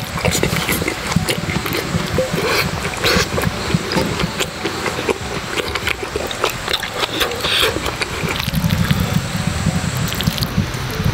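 Fried rice sizzling and crackling on a hot cast-iron pot-lid griddle: a dense run of tiny pops and hiss, with a low rumble growing stronger near the end.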